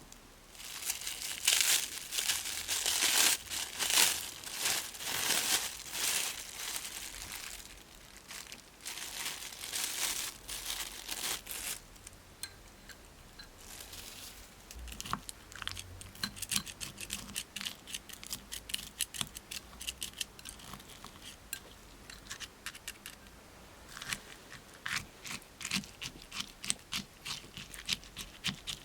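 Crunching, crinkling handling of slime-making materials being crushed and mixed by hand, loudest in the first dozen seconds. It is followed by a long run of quieter, rapid little crackling clicks.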